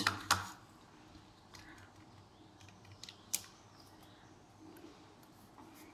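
Faint scattered clicks and taps, with one sharper click a little over three seconds in.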